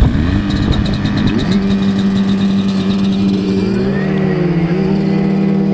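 Portable fire pump's engine running hard, its pitch climbing in two steps as it is throttled up to push water through the hoses.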